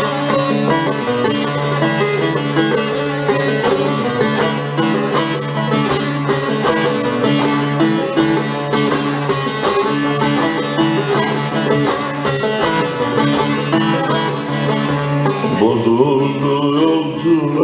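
Bağlama (Turkish long-necked saz) played in an instrumental interlude between verses of a folk song. Quick plucked notes run over steady low notes underneath.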